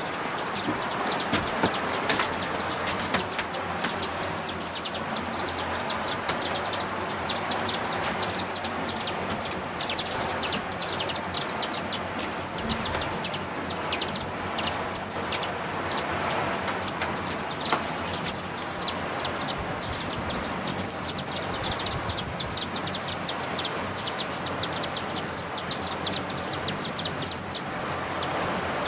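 Many hummingbirds buzzing around feeders: a steady, high-pitched trill of wings, dotted with many short chips, over a lower whirring hum.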